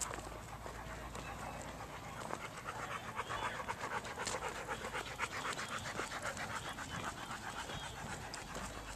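A dog panting hard, in quick, evenly repeating breaths.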